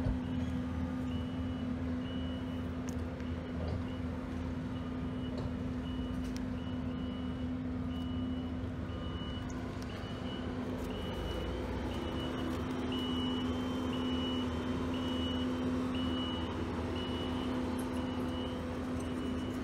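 Vehicle reversing alarm beeping about once a second, a short high-pitched tone repeated evenly, over a steady low engine hum.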